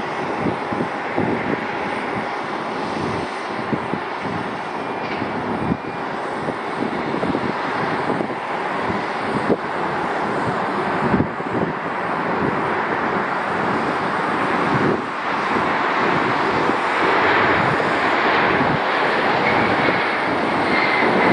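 Jet engines of a Boeing 737 airliner on landing approach and touchdown: a steady roar that grows louder in the last third as the plane passes close. A faint whistle falls slightly in pitch near the end.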